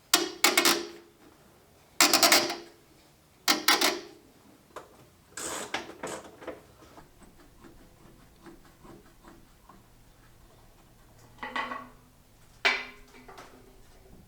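Metal tools and hardware clanking: several sharp, ringing strikes in the first few seconds, a run of small quieter clicks through the middle, then two more clanks near the end.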